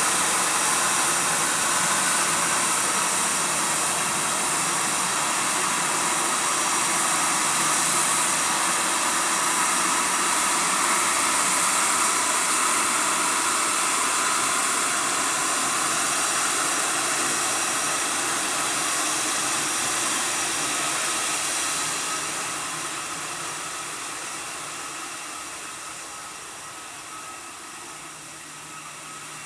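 Jet airliner's engines running at taxi power as it turns on the runway: a steady loud hiss with a whine, fading over the last several seconds as it swings away.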